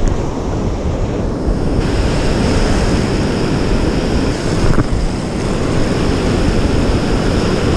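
Ocean surf breaking and washing over the shallows around the wader's legs: a steady, loud rush of whitewater.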